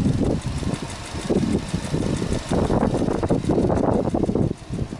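Subaru Impreza S-GT's turbocharged 2.0-litre flat-four boxer engine running with the bonnet open. Its level swells and falls unevenly and drops away near the end.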